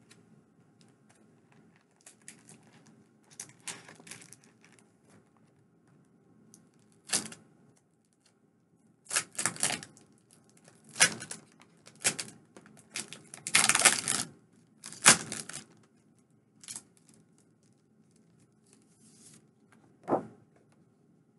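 Paper and packaging rustling, crinkling and tearing as items are unwrapped and handled, in a string of short bursts that are busiest and loudest in the middle.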